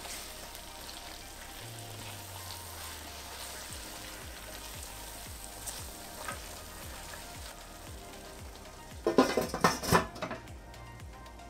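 Chicken korma sizzling in a stainless steel pot on a gas stove while a silicone spatula stirs it. About nine seconds in, a few loud clattering knocks as the pot's lid is set on.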